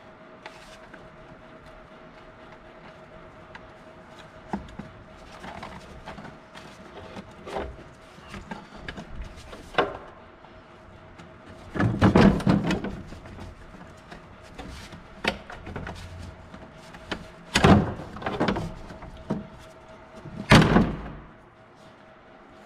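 Scattered knocks, clunks and rattles as the plastic fuel tank of a 1992 Arctic Cat Kitty Cat snowmobile is worked loose and handled, over a faint steady hum. Three loud thumps come in the second half.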